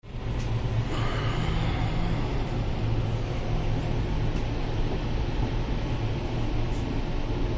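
Steady low rumble of a moving passenger train, heard from inside the closed air-conditioned coach.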